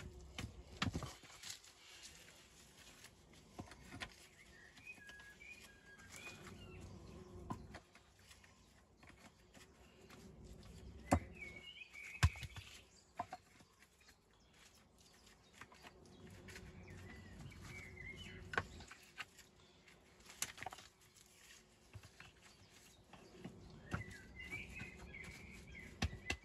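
Loose walling stone and rubble being shifted by gloved hands: scraping and rustling, with several sharp clacks of stone on stone. Birds chirp now and then.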